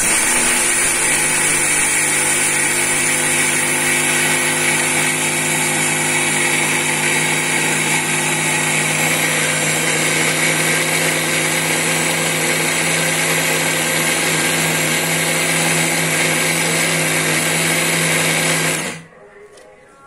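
Electric mixer grinder running steadily at full speed with its small steel dry-grinding jar, milling roasted grains, peanuts and sugar into powder. The motor cuts off suddenly near the end.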